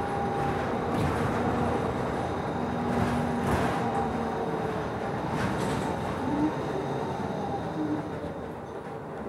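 Interior noise of a Nova Bus LFS city bus under way: a steady engine and road rumble with a few brief rattles.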